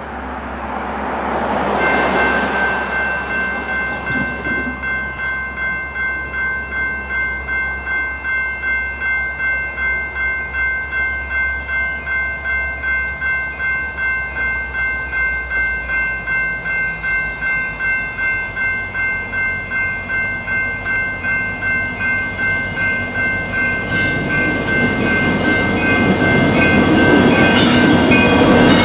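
Railroad grade-crossing warning bell, starting about two seconds in and ringing steadily at about two strikes a second. In the last few seconds a Union Pacific diesel freight locomotive rolls into the crossing, its engine and wheels growing louder over the bell.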